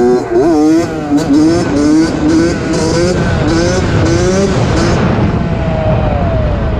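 2003 Suzuki RM60 two-stroke mini dirt bike engine being ridden, its revs rising and dropping in quick repeated surges, then falling off in one longer slide near the end.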